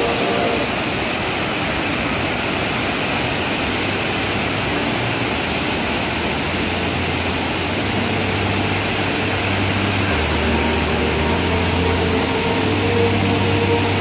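Floodwater pouring over a concrete weir spillway: a steady, unbroken rush of white water.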